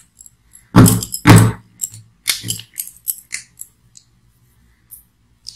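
A multimeter and its plastic test leads handled on a wooden table: two loud knocks as the meter is set down, then a run of lighter plastic clicks and rattles from the probes and leads.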